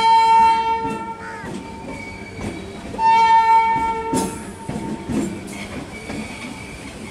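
Train horn sounding two loud blasts, each a single steady tone: one stops about a second in, the other starts about three seconds in and lasts about a second. Between and under them the moving train's wheels rumble and clatter over the track, with a sharp knock just after the second blast.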